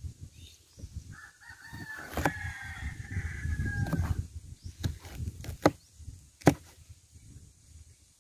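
A rooster crows once, a long call from about a second in to about four seconds. A knife knocks sharply on a plastic cutting board a few times while slicing a bell pepper, the loudest knock near the middle, over a low rumble of wind on the microphone.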